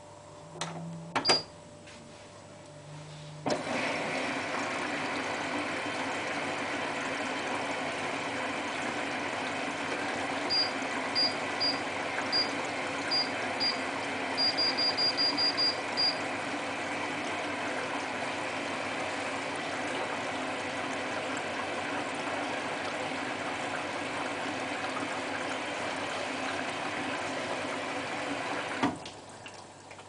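Hotpoint Ultima WT960 washing machine filling with water at the start of a cycle: a few clicks about a second in, then water rushing in steadily from about three and a half seconds, cutting off suddenly near the end. A run of short high beeps sounds about ten seconds in.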